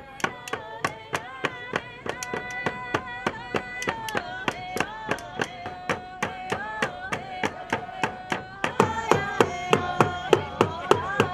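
A hand game song: several voices chanting together over a steady beat of sticks struck on wood, about three beats a second. It grows louder from about nine seconds in.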